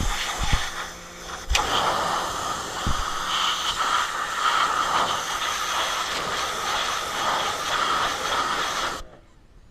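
Electric pressure washer's water jet spraying against a dirt bike, a steady hiss. It eases off briefly about a second in and stops shortly before the end.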